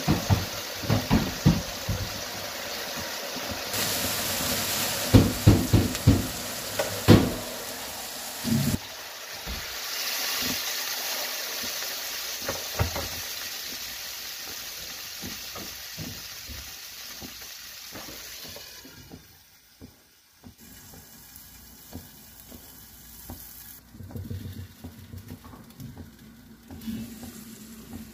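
Sliced vegetables sautéing and sizzling in oil in a nonstick frying pan, with scattered knocks of a utensil against the pan. In the last third, once broth is in the pan, the sizzle falls away to a much quieter simmer with light stirring clicks.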